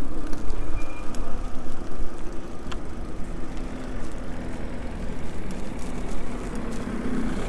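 Wind blowing across the microphone of a rider on an electric bike, with tyre noise on paving stones underneath. A faint low hum comes in about halfway through.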